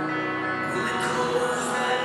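Viennese waltz music playing over loudspeakers for the dancers.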